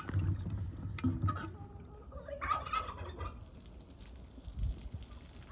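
Water splashing in a washbasin as hands scrub potatoes, then a short warbling call from farmyard fowl about two and a half seconds in.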